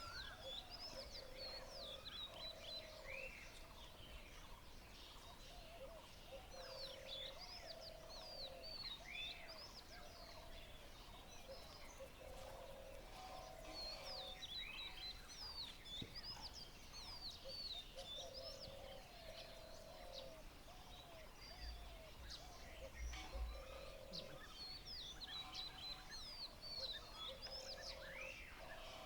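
Morning chorus of several birds: many quick high chirps and whistles overlapping, with a lower call about a second long repeating every two to three seconds, over faint steady outdoor background noise.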